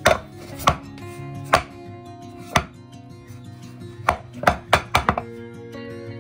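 Metal muffin pan knocking against a wooden cutting board: about nine sharp knocks, spread out at first and then several in quick succession about four to five seconds in. Soft background music plays underneath.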